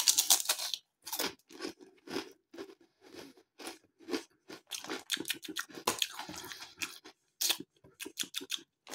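Close-up crunching and chewing of hard crinkle-cut potato crisps: a run of irregular crackly crunches, loudest in the first second.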